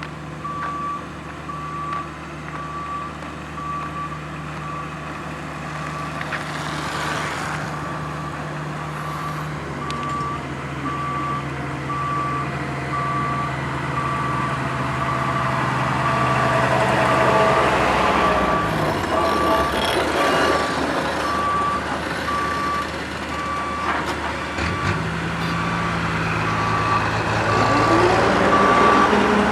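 Road roller's diesel engine running with its reversing alarm beeping steadily at one pitch. The engine note drops about two-thirds of the way through and picks up again near the end.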